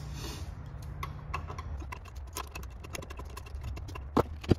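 Light metallic ticks and clicks of a 5/16 Allen key being turned by hand to back out the seal retainer screws on a steel retrieval tool, with two sharper knocks near the end, over a steady low hum.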